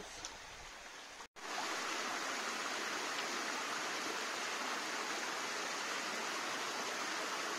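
Mountain stream rushing and splashing over rocks in a steady, even rush. After a brief dropout about a second in, it comes in louder and fuller.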